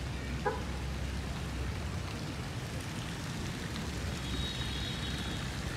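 Steady, even outdoor background hiss, with a low hum through the first two seconds and a faint high whine for about a second near the end.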